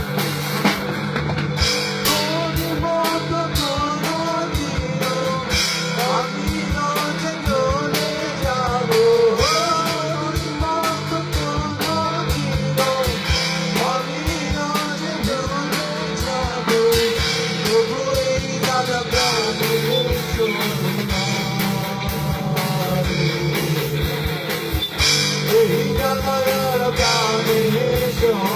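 Rock band jam: a singer's voice over guitar and a drum kit, with a steady bass line underneath.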